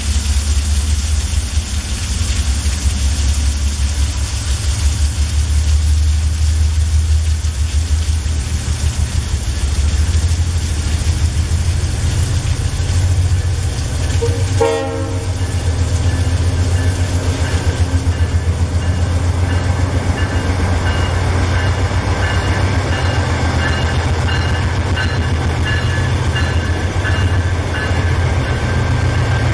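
Two diesel freight locomotives running past in heavy rain: a deep, pulsing engine throb under the steady hiss of rain. A short horn blast sounds about halfway through, and a steady high whine joins in as the locomotives come alongside.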